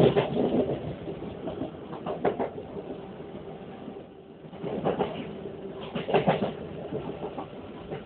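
Moving passenger train heard from inside the carriage: a steady running rumble with bursts of rattling clatter near the start, about two seconds in and again from about five seconds in, over a faint steady hum.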